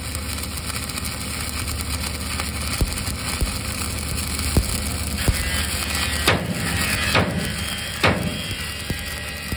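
Stick-welding arc from a 6010 (5P) electrode running a vertical weld on steel plate: a steady, noisy arc sound with several sharp pops in the middle.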